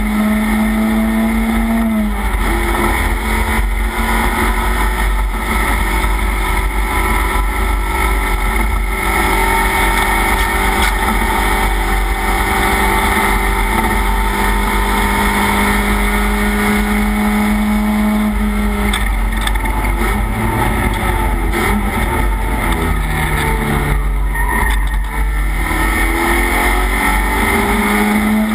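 Race car engine heard from inside the cockpit, running hard on track: the note drops sharply about two seconds in as it shifts up, holds high and steady for a long stretch, falls away around twenty seconds in as the driver lifts for a corner, then climbs again to another sharp drop near the end.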